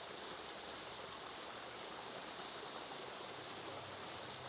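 Steady rush of water from a small woodland stream falling over a little waterfall, swollen after a day of rain.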